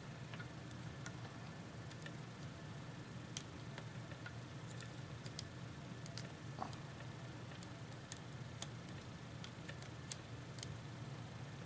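Sparse, irregular light clicks from a lock pick and tension wrench working the pins of a Kwikset-keyway pin-tumbler lock; the picker suspects the clicks come from many serrated pins. A sharper tick sounds about three seconds in and another near ten seconds, over a steady low hum.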